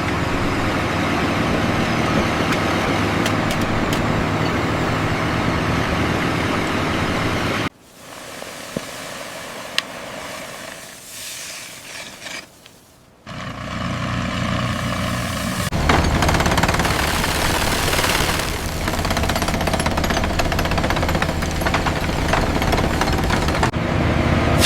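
Road-construction machinery noise: a loud, steady mechanical rumble and clatter. It drops to a much quieter stretch with a few sharp clicks from about eight seconds in, then comes back loud for the second half.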